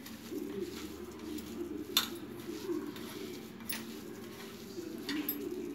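A hand squishing and mixing mashed potato stuffing in a stainless steel bowl, with a few sharp taps against the bowl, the loudest about two seconds in. A bird coos steadily in the background throughout.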